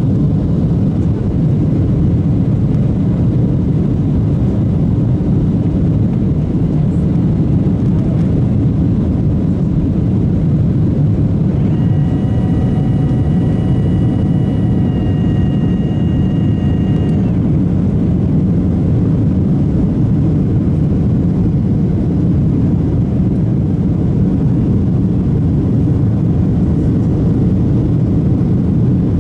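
Steady, loud low rumble of a Boeing 737-800 heard from inside the passenger cabin. About twelve seconds in, a steady high whine of several tones joins for roughly five seconds, then stops.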